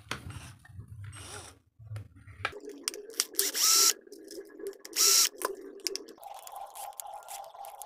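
A J.LD cordless drill-driver runs as it backs the side screws out of a Black & Decker mouse sander's plastic housing, starting about two and a half seconds in. Two short loud bursts come about a second and a half apart. About six seconds in, the motor's pitch steps up.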